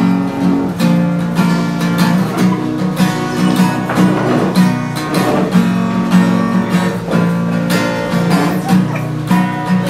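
Acoustic guitar strummed in a steady rhythm, chords ringing on: the instrumental intro before the song's vocals come in.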